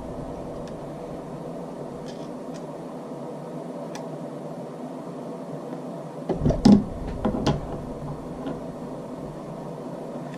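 Small clicks and knocks from handling the parts of a Marlin 336 lever-action rifle while refitting the bolt and extractor: a few faint scattered clicks, then a quick cluster of louder knocks a little past halfway, over a steady background hiss.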